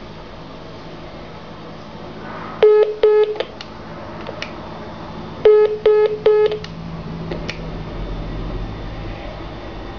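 Short electronic telephone beeps of a single pitch over a steady low line hum: two beeps a little before a third of the way in, then three more just after halfway, with a few faint clicks between.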